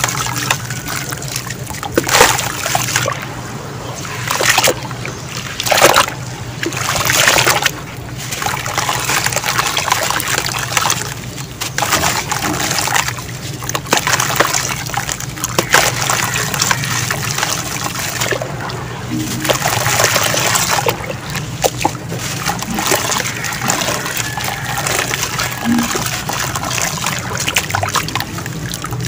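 Wet sand and cement crumbling through hands and falling into a tub of muddy water, with repeated splashing and trickling. It comes in irregular bursts, several of them louder in the first eight seconds.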